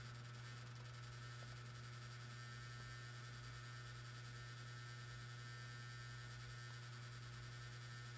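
External hard disk drive running with a steady low hum and a fainter high whine, the abnormal noise its owner finds really noisy.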